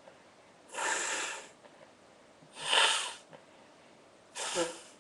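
A person sneezing three times in a row, each sneeze a short noisy burst about two seconds after the last; the middle one is the loudest.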